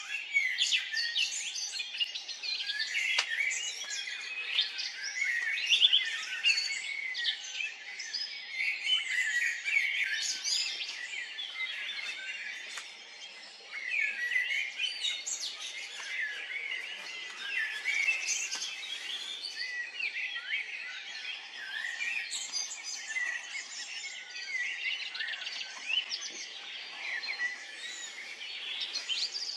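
Many small songbirds chirping and singing at once: a dense chorus of quick, high, overlapping chirps and trills that thins briefly about halfway through.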